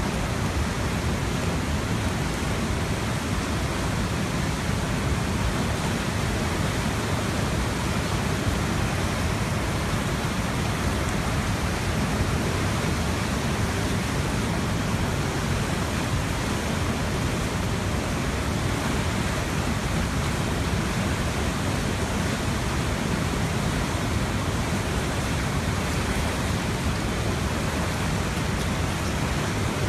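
Tanaro river floodwater rushing through flooded town streets: a steady, unbroken rush of fast-moving water.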